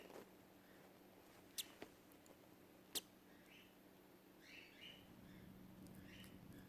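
Faint, short peeps from a cockatiel chick hatching out of its egg, with two sharp clicks about a second and a half and three seconds in, over a low steady hum.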